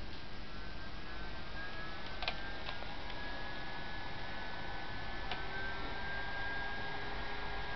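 Steady electrical hum with a faint high whine from running electronics, and two light clicks, one a couple of seconds in and one about five seconds in.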